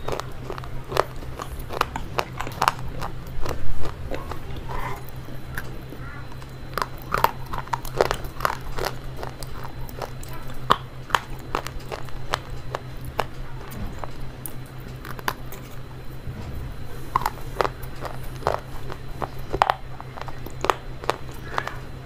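Close-miked crunching and chewing of slate pencil: sharp, irregular crackly bites and grinding crunches, the loudest about three and a half seconds in. A steady low hum runs underneath.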